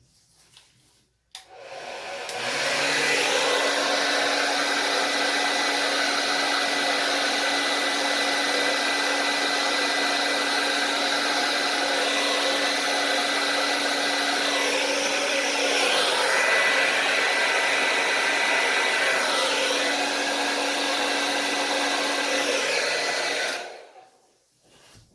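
Hand-held blow dryer switched on about a second in, running steadily with a constant whine over its rush of air, then switched off near the end. It is blowing poured acrylic paint across a canvas.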